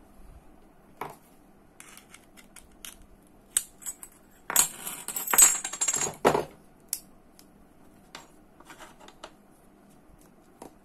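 Metal parts of a small direct-drive fishing reel clicking and clinking as they are handled and fitted together, with scattered light clicks and a run of bright, ringing metal clinks around the middle.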